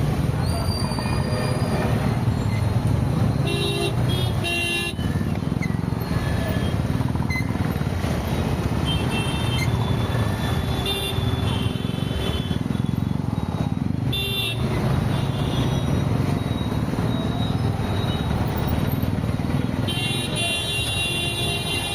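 City road traffic: a steady rumble of engines and tyres, with vehicle horns honking several times, around four seconds in, again around eleven to fourteen seconds, and near the end.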